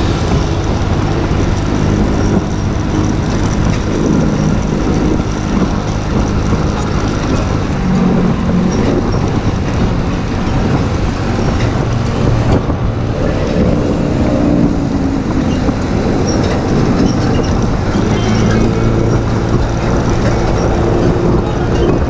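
Wind rushing over the microphone of a moving scooter, with the scooter's small engine running underneath and road traffic around it.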